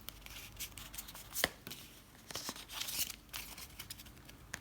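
Foil booster pack wrapper crinkling and tearing, in scattered sharp crackles and short rustles.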